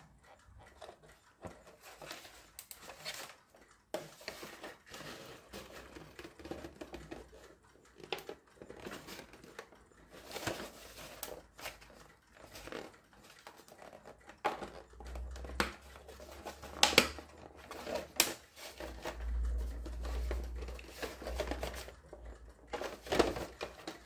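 Plastic body shell of a New Bright Mercedes-Benz SLR McLaren RC car being flexed and handled: scattered crackles, creaks and clicks, with a few dull bumps in the latter half.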